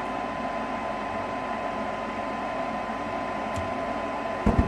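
Gas furnace's combustion blower (inducer motor) running steadily with a whine, no longer sloshing now that trapped condensate water has been drained from its housing. Near the end come a few low thumps.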